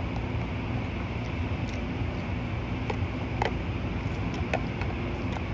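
Steady low machine hum with a hiss, with a few faint clicks around the middle.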